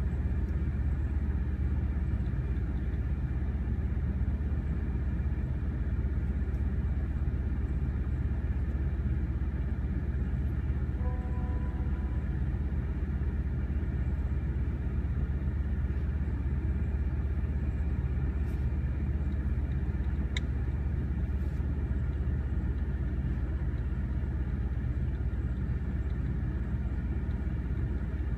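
A steady low engine rumble at an even level throughout, heard from inside a car. About eleven seconds in, a brief faint pitched tone lasts about a second.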